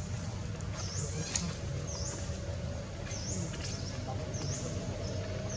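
High, short chirping calls, repeated about once a second, over a steady low rumble.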